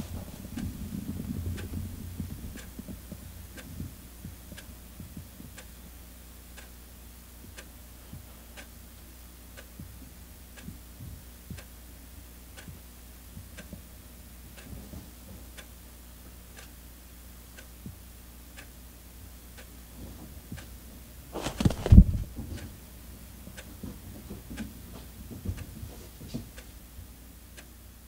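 Clock ticking steadily, about once a second, over low rustling of a felt mat as a cat shifts underneath it. About 22 seconds in comes one louder, brief rustle and bump.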